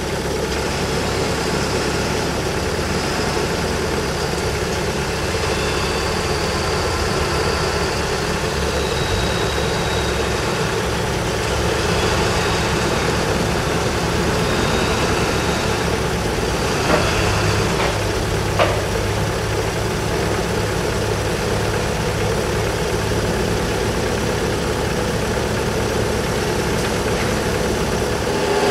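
Bobcat skid-steer loader's turbocharged engine running steadily, its low hum shifting a couple of times, with two sharp clanks about two-thirds of the way through.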